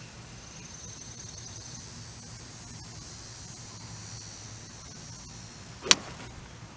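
A golf club strikes a ball once, about six seconds in, with a single sharp crack. Insects trill steadily in the background before it.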